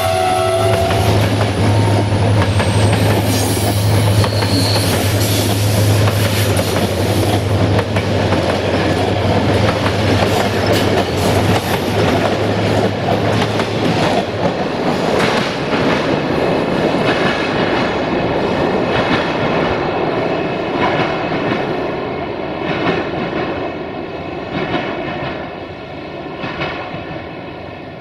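Passenger coaches rolling past at speed, their wheels clicking over the rail joints, with the locomotive's horn trailing off in the first second and a steady low drone that stops about halfway. The clatter fades over the last several seconds as the train goes away into a tunnel.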